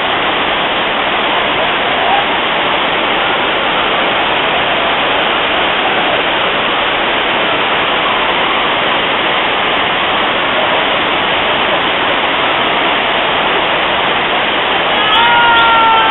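Steady rushing of a waterfall as white water cascades over rock terraces. Near the end a person's voice calls out briefly over the water.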